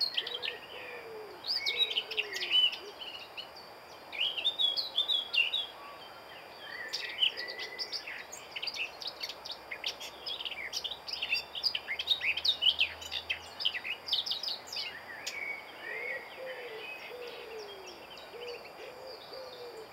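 Outdoor birdsong: several birds singing in quick chirping phrases, with a low, repeated hooting call at the start and again near the end.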